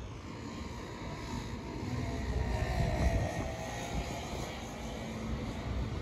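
A motor's drone with low rumble, swelling to its loudest about three seconds in and then easing off as it passes, with wind buffeting the microphone.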